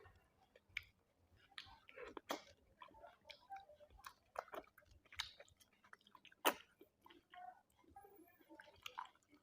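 A person chewing a mouthful of rice and curry, with scattered wet clicks and smacks from the mouth; one sharper click stands out about six and a half seconds in.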